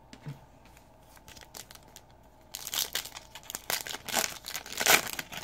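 A trading-card pack wrapper being torn open and crinkled, starting about halfway in after a few faint handling ticks, loudest near the end.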